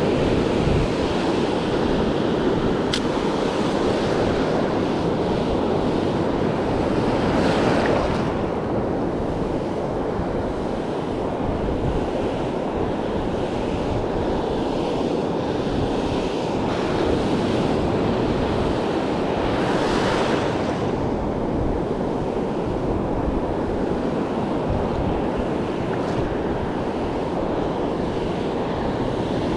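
Ocean surf breaking and washing up the beach, a steady rush with two louder wave surges, one about a quarter of the way in and one about two-thirds in.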